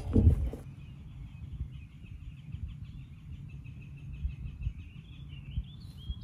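A songbird singing a long, rapid run of faint high chirps over light wind rumble. At the very start a loud knock and rustle as the camera is handled and set down.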